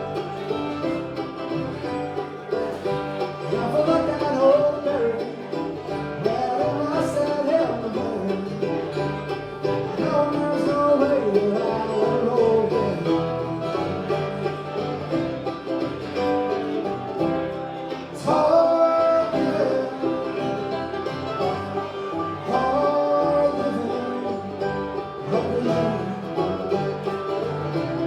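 Bluegrass band playing an instrumental break on acoustic strings, with banjo and guitar picking.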